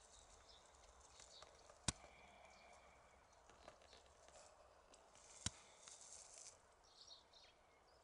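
Near silence: faint outdoor ambience, broken by two short, sharp clicks, one about two seconds in and another three and a half seconds later.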